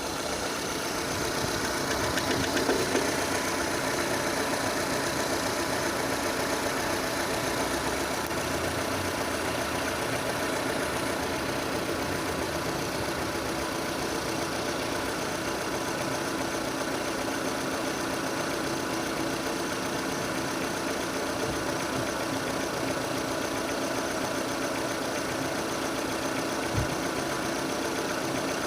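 A Renault Scenic's K4M 1.6-litre petrol four-cylinder idling steadily while it warms up, with a regular knock. The owner hears this knock coming from underneath the engine as it gets warmer. There is one sharp tap about two seconds before the end.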